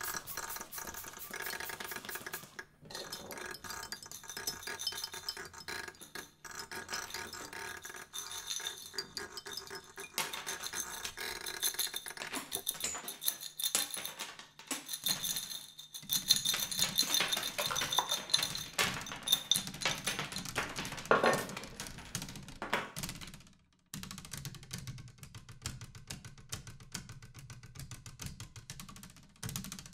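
Improvised percussion on household objects: dense rattling, clicking and tapping, with held ringing tones over the first half. It stops briefly about 24 seconds in, then the clicking and rattling resume.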